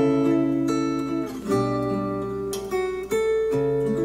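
Acoustic guitar music played back through Polk Audio Reserve R200 bookshelf speakers: plucked chords, a new chord struck about every one and a half seconds.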